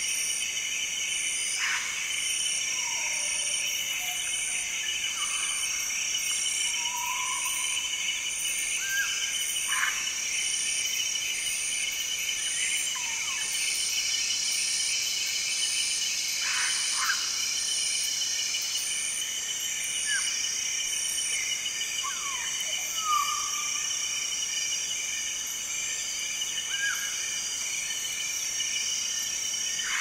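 Tropical forest soundscape: a dense, steady insect chorus of high buzzing layers, one of them pulsing about twice a second. Over it come about a dozen scattered short whistled calls and falling glides from wild African grey parrots.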